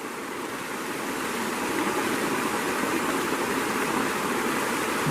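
Steady rush of flowing river water, an even hiss-like noise that swells a little at the start and then holds.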